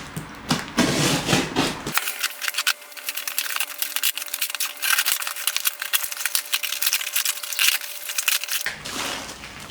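Packing material being pulled open and off a shipped part, a dense run of rapid crackling and rustling.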